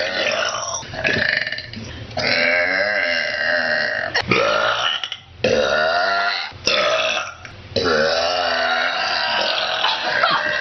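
Girls burping: several long, drawn-out belches in a row with short gaps between them, their pitch wavering up and down.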